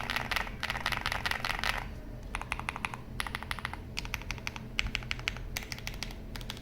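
Typing on an Owlab Mr Suit custom mechanical keyboard with Owlab Neon switches and PBT keycaps on a POM plate, foam-filled. A fast run of keystrokes for about the first two seconds, then short bursts of key presses with brief pauses between them.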